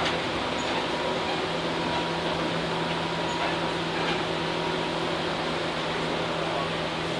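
Steady hum and rumble inside a Tobu 8000 series electric train car, with a low steady tone running under the noise.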